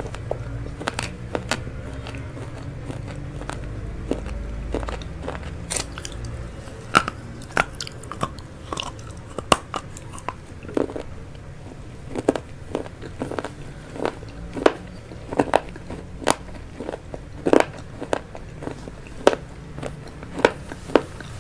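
Close-miked chewing of a mouthful of vegetable chow mein, with short sharp clicks about once or twice a second that come more often after the first several seconds.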